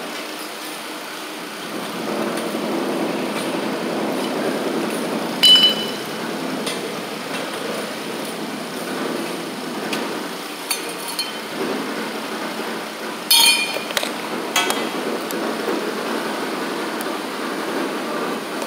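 Copper pipe and ProPress fittings being handled, clinking together with a short metallic ring: two louder clinks, one about a third of the way in and another about two-thirds in, with a few lighter clicks between, over steady background noise.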